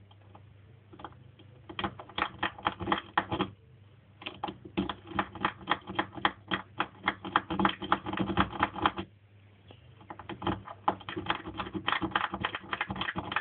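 Snake rake scrubbed back and forth in a single-sided wafer lock under tension, making rapid metallic clicking as it rattles over the wafers. The clicking comes in three long runs, several clicks a second, with brief pauses about 4 s and 9 s in.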